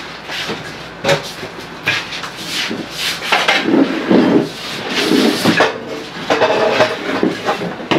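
Household clatter: dishes and utensils knocking and scraping at a kitchen table, with irregular knocks throughout.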